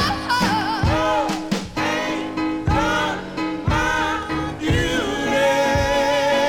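Gospel-soul record with wordless sung melisma over drums and band, settling into a long held chord near the end.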